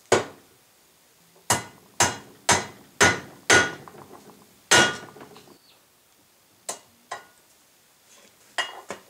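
Hammer blows on a driveshaft U-joint yoke, driving the bearing cups out with the old U-joint cross as a driver. About seven hard, ringing metal strikes come in the first five seconds, most of them half a second apart, then a few lighter taps near the end.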